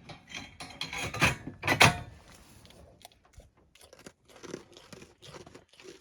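Goat crunching on a dry treat, irregular crunches that are loudest about one to two seconds in and then fainter.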